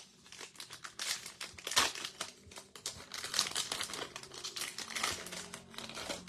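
Trading-card pack wrapper crinkling and crackling irregularly as it is opened and the cards are handled.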